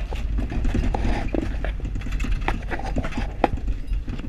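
Inside a moving van: a steady low rumble with irregular knocks and rattles from the body and fittings, several sharp ones in the second half.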